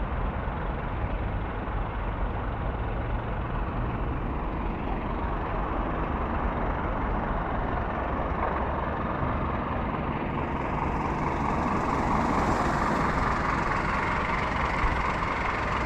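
Steady rumble of heavy vehicle engines running, with a rushing noise that swells in the second half.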